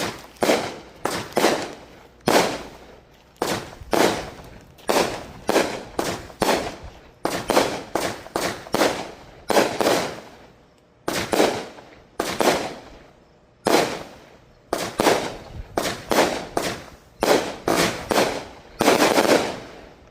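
Fireworks exploding in quick, irregular succession, about one to two sharp bangs a second, each followed by a short echoing tail.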